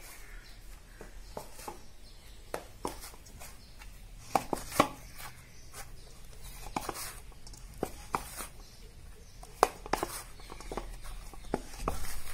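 Hands kneading warm rice-flour dough in a stainless steel bowl: irregular soft slaps and knocks as the dough is pressed and pushed against the metal.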